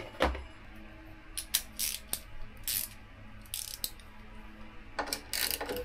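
Scattered light clicks and knocks of hand tools and plastic motorcycle panels being handled during work on the bike, with a closer cluster of them near the end.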